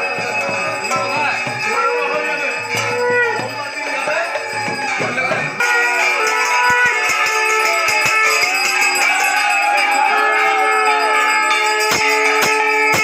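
Festive ritual noise: metal bells and a hand-held bell-metal gong ringing and clanging continuously, with rising and falling wavering calls over them and a few sharp strikes near the end.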